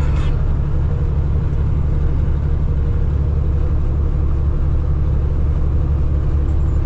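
Steady low drone of a semi truck's diesel engine and tyre noise, heard from inside the cab while driving on the highway.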